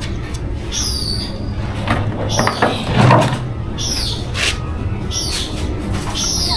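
A bird calling again and again, a short high note that falls in pitch about every second or so, over a steady low hum. About halfway through comes a brief louder noise as the plastic water bottle is handled.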